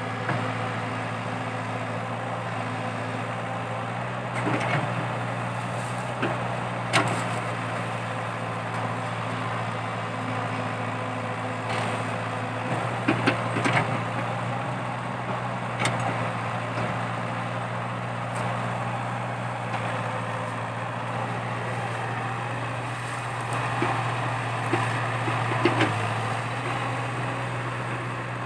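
Komatsu PC80 excavator's diesel engine running steadily under load, with intermittent sharp knocks and clatters from the digging work, loudest about a third and near the end.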